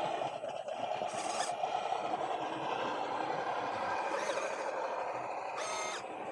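Scale RC crawler's small electric motor and gearbox whining steadily as the truck drives, heard close up from the body, with a few brief high scrapes or squeaks over it.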